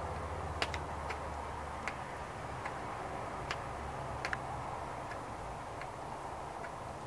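Knife point being jabbed into the plastic cap of a gallon water jug to punch holes in it: a dozen or so small sharp clicks and ticks at an irregular pace, roughly one every half second, over a low steady background hum.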